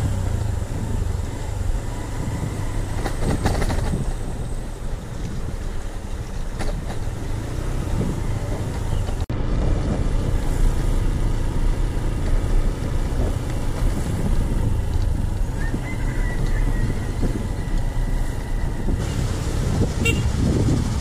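Motorbike engine running steadily while riding, with wind rumbling on the microphone. There is a momentary break in the sound about nine seconds in.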